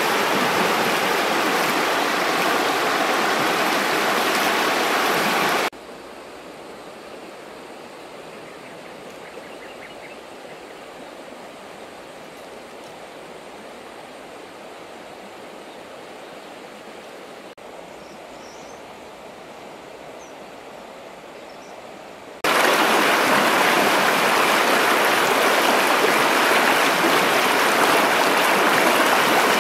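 Shallow river running fast over rocks: a steady hiss of rushing water. About six seconds in it drops suddenly to a much quieter, softer flow, and it comes back loud again near the end.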